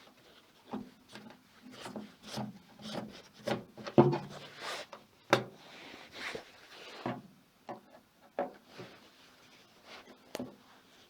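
Irregular clicks, knocks and scraping of hard objects being handled. The loudest knocks come about four and five seconds in.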